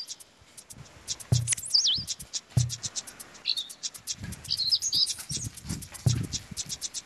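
Birds chirping in quick high bursts, with a couple of warbling whistles about two seconds in, over a few short low thumps.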